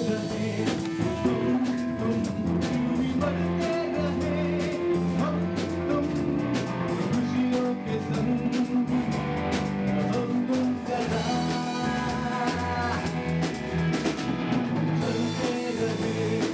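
A rock band playing: electric guitar, bass and drum kit, with singing.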